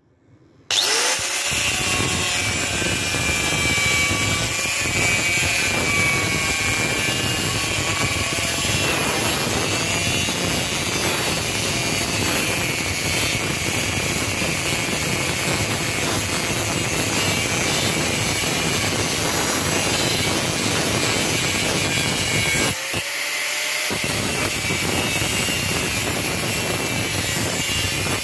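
Angle grinder with a thin cutting disc starting up about a second in, its pitch rising, then cutting steadily through hardened car spring steel. About twenty-three seconds in it drops for a moment and picks up again.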